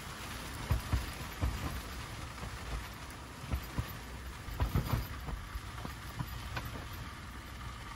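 Rain falling on a car-side tent: a steady patter on the fabric and clear panels, with scattered soft thuds of heavier drops.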